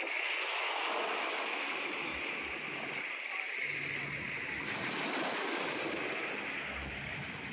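Waves washing onto a sandy beach, a steady hiss of surf. A low engine drone joins about halfway through.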